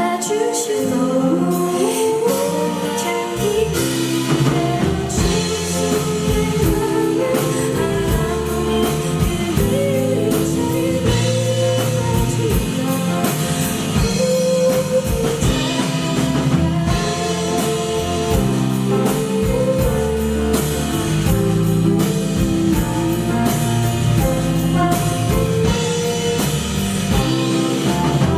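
Live band music from a pop song performance: a singer's voice over guitar, with bass and drums coming in about three seconds in.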